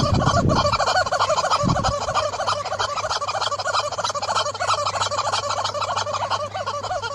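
Yellow rubber chicken squeak toy squawking in a fast, unbroken run of squeaks as a horse chomps on it.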